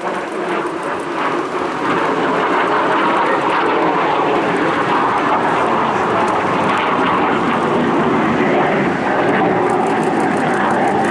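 MiG-17 jet fighter's VK-1F turbojet noise as it flies its display, building over the first two seconds and then holding as a loud, steady rush.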